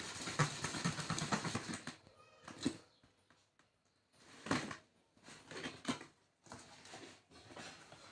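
Small blade slitting the packing tape on a cardboard box: scraping and crackling for the first couple of seconds, then short bursts of cardboard scraping and rustling, with the box flaps pulled open near the end.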